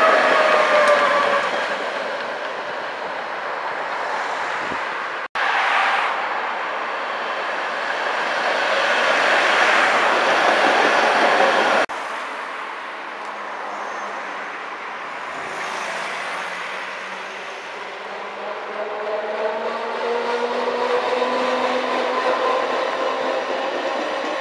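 Electric trams running on street track, a steady rolling rumble. At the start the motor whine falls as a tram slows past, and near the end a rising whine of traction motors is heard as a tram gathers speed. The sound cuts off abruptly about 5 s and 12 s in.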